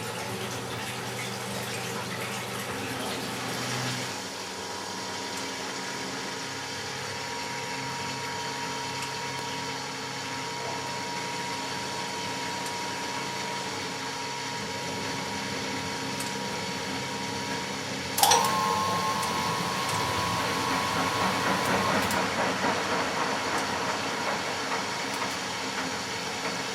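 Matura Autostatic 850 washing machine running with water flowing and a steady hum. About two-thirds of the way in there is a sharp click, and the water noise then grows louder and more uneven for a few seconds.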